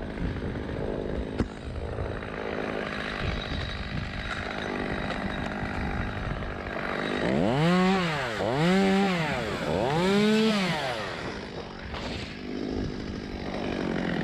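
Stihl MS 200T top-handle two-stroke chainsaw running, revved three times in quick succession about halfway through, each rev rising and falling in pitch over about a second.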